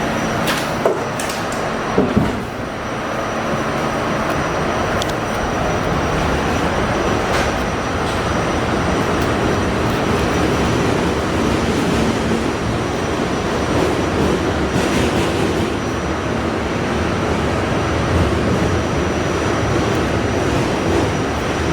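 R68A subway car running along the track: a steady rumble of wheels and running gear, with a few sharp clicks over the rail joints in the first couple of seconds and occasional fainter ones later.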